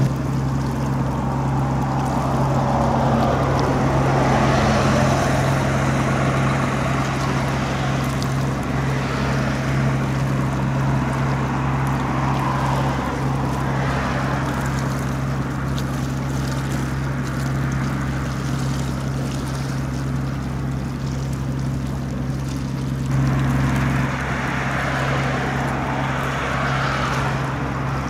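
A ship's engine running with a steady low drone, under a shifting wash of water noise.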